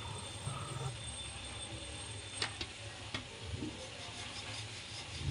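Rolling pin rolling out dough on a marble slab: low rubbing handling sounds with three light clicks near the middle, over a steady low hum.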